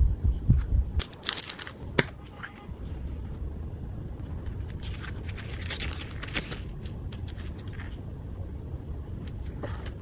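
Packaging being handled: paper or plastic crinkling and tearing in a couple of bursts, with soft knocks at the start and a sharp click about two seconds in.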